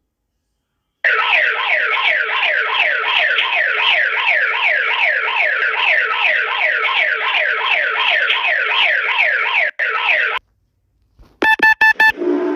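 Electronic alarm of rapidly repeating falling-pitch sweeps, about three a second, starting about a second in and cutting off near the end. After a short pause, a quick run of short electronic beeps.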